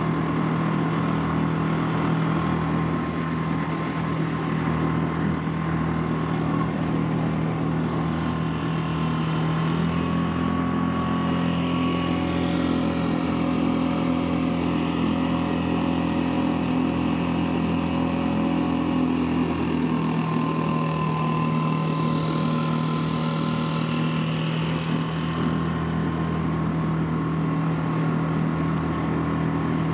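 New Mercury 2.5 hp four-stroke outboard running steadily under way, pushing a small duck boat at cruising throttle while it is being broken in, with water hiss from the hull and wake. For about ten seconds in the middle its note sounds fuller, with more low rumble.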